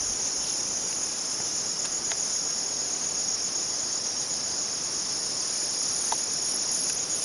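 Steady, high-pitched chorus of insects chirring in the countryside, unbroken throughout.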